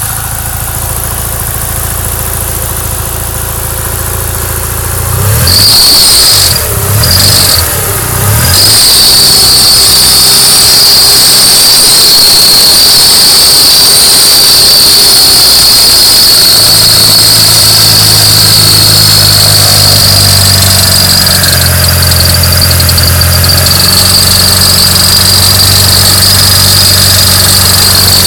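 Mitsubishi Lancer Evolution IX engine running, then revved about five seconds in, when a steady high-pitched squeal from the accessory belt drive starts and holds, cutting out briefly twice soon after. The owner puts the squeal down to a bad pulley, the idler or the AC compressor, showing at higher RPM.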